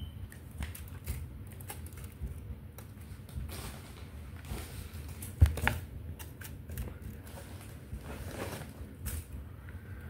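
Small handling noises: scattered clicks and rustles over a low rumble, with one sharp knock about five and a half seconds in.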